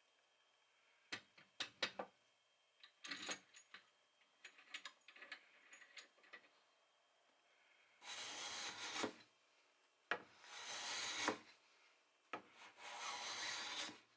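Hardwood being worked with a hand tool: a few light knocks and short scrapes, then three long rasping strokes across the wood, each lasting over a second.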